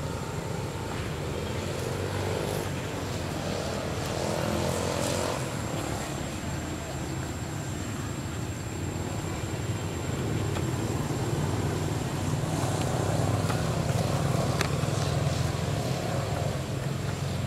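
Low, steady engine drone that swells from about ten seconds in and eases off near the end, with a thin steady high-pitched tone.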